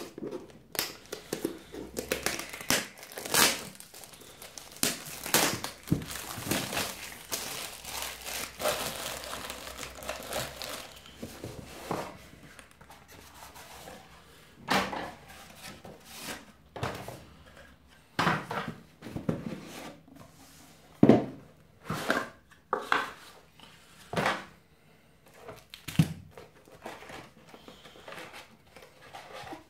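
Plastic shrink wrap being torn and crinkled off a cardboard box, dense for roughly the first ten seconds. After that come separate knocks and scrapes as the cardboard lid slides off and the box parts are set down.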